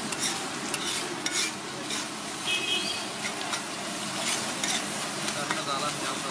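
Egg frying and sizzling in a hot pan while a metal spatula scrapes and clacks against it in quick, irregular strokes.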